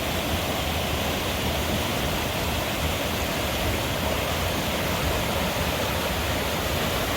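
Swollen creek in flood, its fast water rushing steadily.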